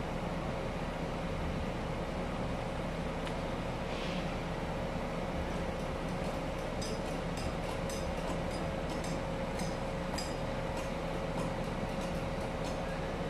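Steady industrial machinery drone with a constant whine and low hum. Light metallic clinks and taps come in quick succession through the second half.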